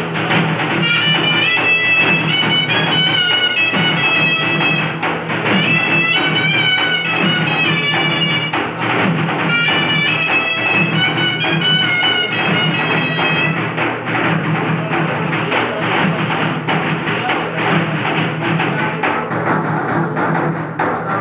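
Music with a steady drum beat over a low drone, and a high wavering melody that drops out about two-thirds of the way through, leaving the drums and drone.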